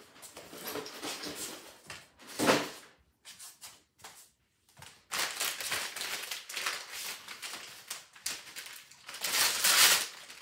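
A shipping package being handled and opened by hand: irregular rustling and scraping of packaging in bursts, with a sharp burst about two and a half seconds in, a short lull, and the loudest rustle near the end.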